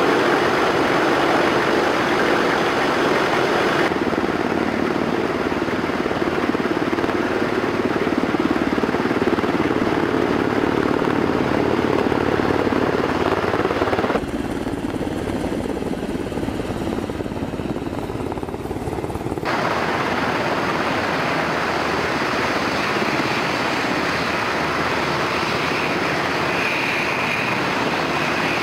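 Several UH-60 Black Hawk helicopters running close by as they come in to land, a steady din of rotor beat and turbine noise. The sound changes abruptly about four, fourteen and twenty seconds in, with a brief higher whine near the end.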